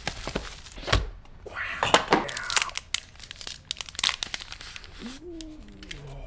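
Thin plastic packaging and a clear protective film crinkling and tearing as a new phone is unboxed and unwrapped, with a knock about a second in. Near the end a brief wordless voice sound.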